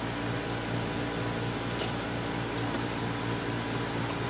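Small room air conditioner running with a steady hum, with a sharp light click a little under two seconds in and a fainter one soon after as the wooden, glass-paned clock door is handled.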